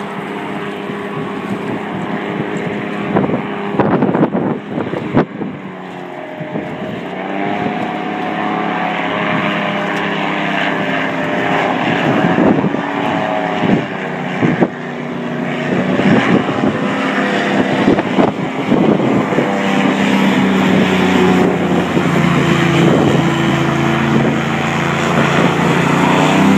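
Airboat's engine and air propeller running, its pitch wavering up and down with the throttle and growing louder toward the end as the boat comes closer. Wind buffets the microphone now and then.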